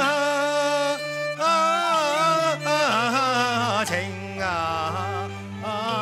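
Cantonese opera music: a traditional ensemble playing a wavering, sliding melody over steady low notes between the sung lines.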